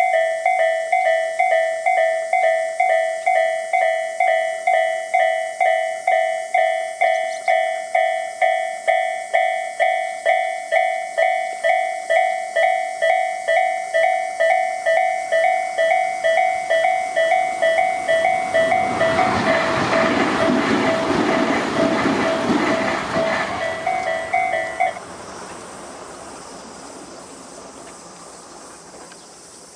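Japanese railway level-crossing warning bell ringing "kan-kan" in fast, even strikes. About nineteen seconds in, a train passes through the crossing for several seconds. The bell cuts off suddenly just after the train has passed, and the train's sound fades away.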